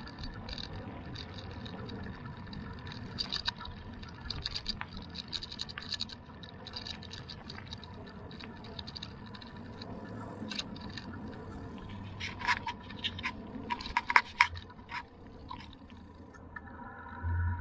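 Bicycle rolling over a gravel track and then asphalt: steady tyre and road noise with scattered clicks and rattles from the bike, and a cluster of louder sharp clicks about twelve to fourteen seconds in.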